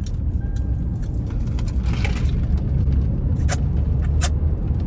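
Car cabin road noise while driving: a steady low rumble, with a few short clicks in the second half.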